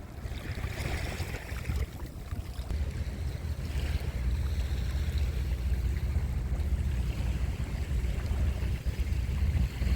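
Sea surf washing on the shore, swelling now and then. A heavy, gusting wind rumble on the microphone is louder than the surf throughout.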